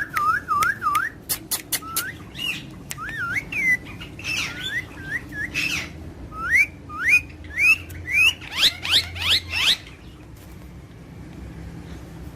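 Parrot whistling and chirping: a string of short whistles that swoop up and down, mixed with sharp clicks, ending in a quick run of rising whistles that stops about ten seconds in.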